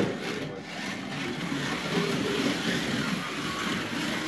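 Can-Am class slot cars running on a slot car track: small electric motors whining as they lap, with faint voices in the background.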